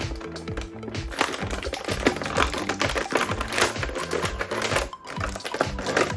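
Background music with a steady beat, over a dense run of quick clicks and rattles from handling something hard.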